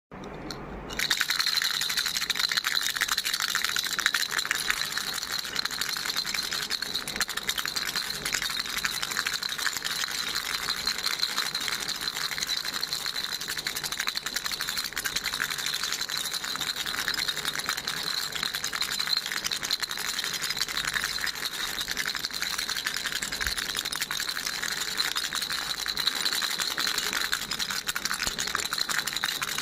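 Baby rattle shaken without a break, a dense steady rattling that starts about a second in.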